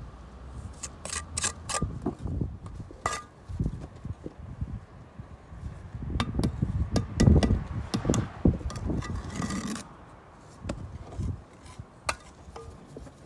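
Bricklaying work: a steel trowel scraping mortar and clinking against old reclaimed bricks, with sharp taps and knocks as bricks are set and tapped down, busiest past the middle with a brief scrape near the end of that stretch.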